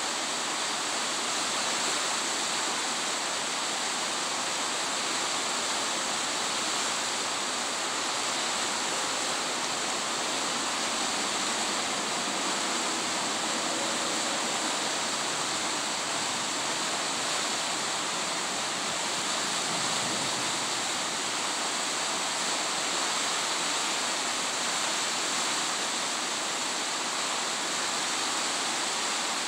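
Beaverkill River rushing steadily over rapids, an even, unbroken wash of moving water.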